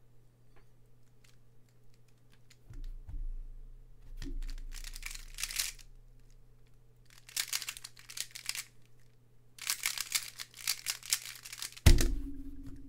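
Square-1 puzzle being turned fast in a speed solve: rapid plastic clicking and clattering of the layers turning and slicing, in three bursts. Just before the end, both hands slap down on a Speed Stacks timer pad to stop it, a sharp thump that is the loudest sound. Before the solve, two soft thumps come as the hands go onto and lift off the timer.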